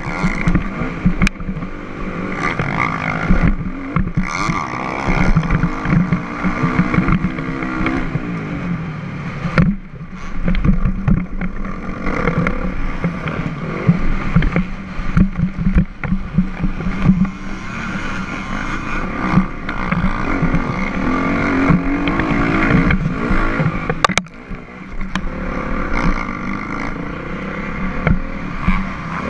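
Motocross dirt bike engine heard close from a camera mounted on the bike, revving up and down as the rider works the throttle around a dirt track. The throttle drops off briefly twice, and a few sharp knocks cut through.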